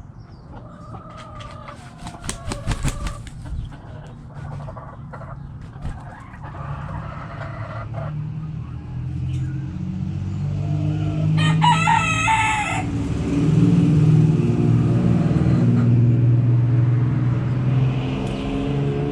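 Backyard hens clucking, with a quick run of sharp taps about two to three seconds in, then a rooster crowing once, briefly, just past the middle. Under it a low vehicle engine rumble builds from about halfway and is loudest near the end.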